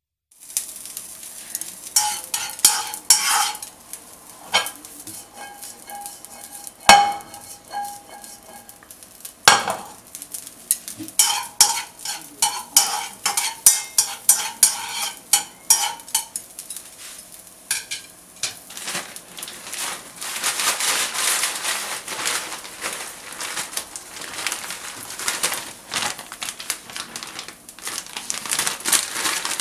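Diced meat sizzling in a nonstick frying pan while a spatula stirs and scrapes it, with frequent clicks and knocks of the spatula against the pan and two louder strikes. After about two-thirds of the way through, the sizzling becomes a steadier hiss.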